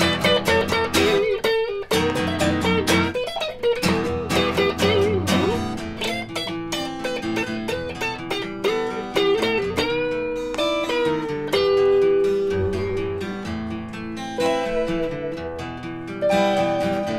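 Acoustic guitar strummed and electric guitar picking melodic lead lines together, a two-guitar duo playing live.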